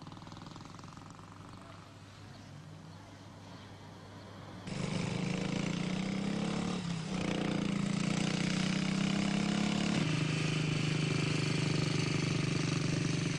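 Small motorcycle engine running: faint at first, then about five seconds in a loud, steady engine note cuts in suddenly. Its pitch dips briefly a couple of seconds later and steps down again near the ten-second mark.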